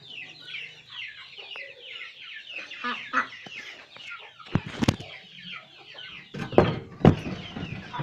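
Chickens: a flock of chicks peeping in rapid, short falling chirps throughout, with some clucking. A few loud thumps stand out about five seconds in and again near six and a half and seven seconds.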